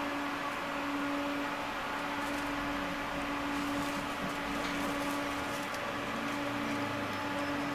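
Steady electrical hum and fan hiss of a TVZ 71-931 Vityaz-M low-floor tram's onboard equipment while it stands at a stop, a constant mid-pitched tone that does not rise or fall, with a few faint ticks.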